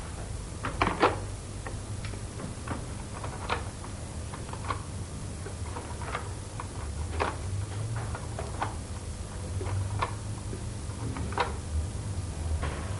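Sparse, irregular light clicks and knocks, about one a second and unevenly spaced, over a steady low hum.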